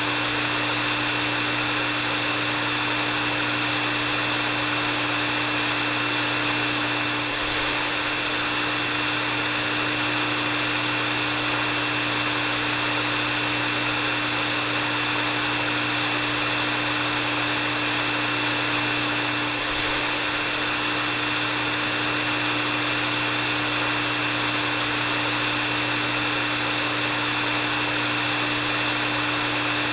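Hair dryer running steadily: an even rush of blown air with a steady low hum and a thin high whine running through it.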